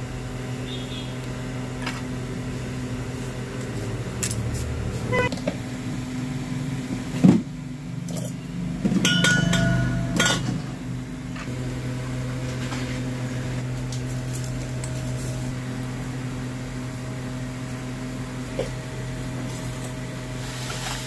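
A steady low machine hum, with a few knocks and clatters: one sharp knock about a third of the way in and a short spell of clatter just before the middle.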